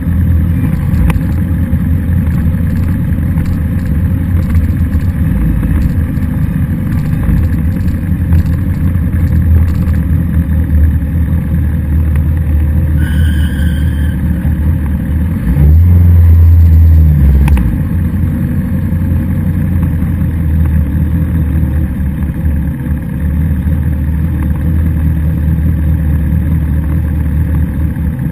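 Kawasaki sportbike's engine running at low speed as the bike rolls along, heard from a camera mounted on the bike. The engine note swells louder for about two seconds just past the middle.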